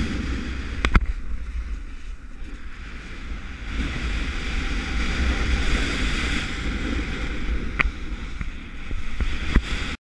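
Wind buffeting the microphone with a steady low rumble, over the hiss of skis gliding on snow while kiting. A few sharp clicks about a second in, near eight seconds and near the end.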